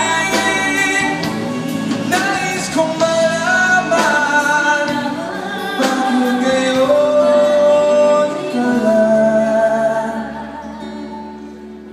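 Live pop duet by a male and a female singer with a band of keyboards, drums and electric guitar, the voices sustaining long notes. Near the end the band dies away under a last held note.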